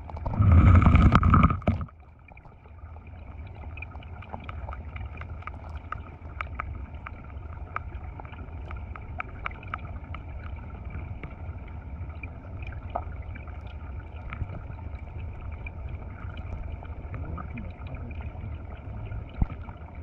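Stream water heard underwater: a steady low rumble with many small scattered clicks. A loud rushing burst comes about half a second in and stops before the two-second mark.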